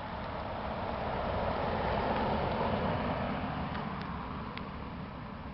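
Road vehicle passing by: a noisy rumble of tyres and engine that swells to a peak about two seconds in and then fades away.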